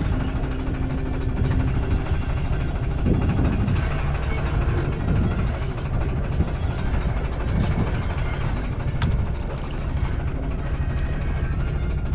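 Small fishing boat's engine running at idle, a steady low rumble, with water moving against the hull.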